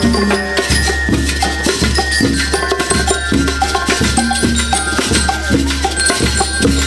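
A school rhythm band playing live: drums beat a steady rhythm under gold bell lyres ringing the tune.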